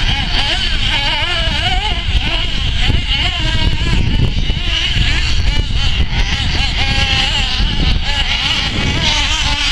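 Several radio-controlled off-road cars' small engines buzzing and revving at once, their pitches rising and falling and overlapping as they run laps.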